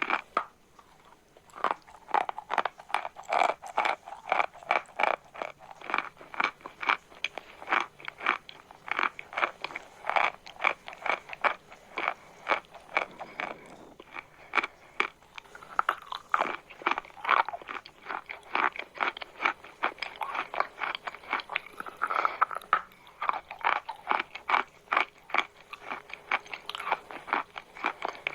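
Chalk being bitten and chewed: a fast, continuous run of crisp crunches, several a second.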